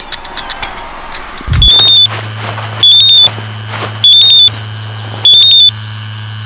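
Mobile phone ringing: a loud, high electronic trill of rapid beeps that repeats about once a second, starting about a second and a half in, over a steady low hum.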